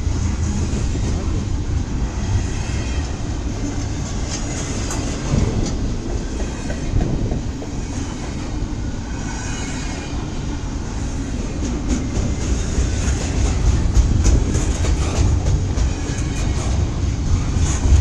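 Long CSX double-stack container freight train rolling past, with a steady rumble of wheels on rail and the clickety-clack of wheels over rail joints, with faint high squeals now and then and getting louder toward the end.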